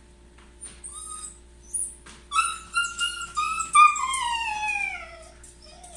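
Shiba Inu whining and yelping: a few short high cries, then a run of whines from about two seconds in, ending in one long whine that falls in pitch. The sound of a dog frustrated and distressed at being left home alone.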